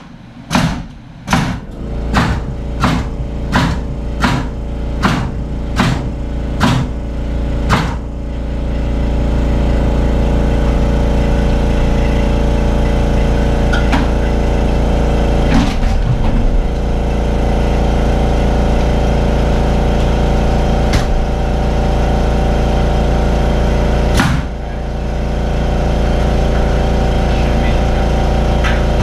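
About a dozen evenly spaced hammer blows on framing lumber overhead. About eight seconds in, a loud steady machine hum takes over, dipping briefly twice.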